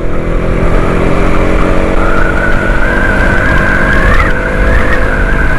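Motorcycle engine running steadily while riding at speed, with rumble from the road and wind. A steady high whistling tone joins about two seconds in.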